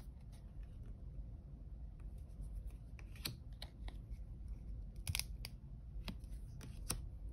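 Thick-cardstock oracle cards handled one after another: soft sliding and rustling, with a few light clicks and snaps scattered through.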